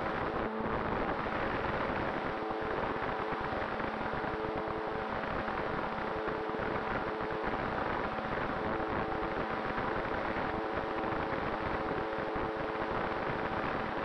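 Onboard sound of a radio-controlled ASW28 model glider in powered flight: a steady rush of wind over the airframe with the hum of its spinning propeller and motor.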